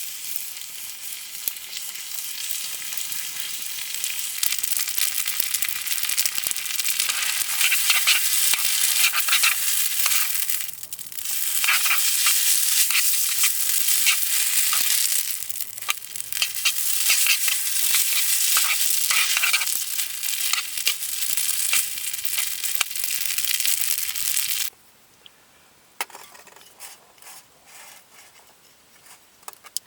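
Food sizzling and frying in a hot pan, a loud, steady hiss with crackles and a couple of brief dips. It cuts off abruptly about twenty-five seconds in, leaving only a few faint clicks.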